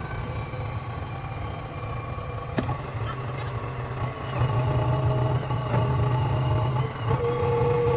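Heavy diesel engine of a tractor or JCB running steadily, getting louder about four seconds in as it takes more load, with a single sharp knock about two and a half seconds in.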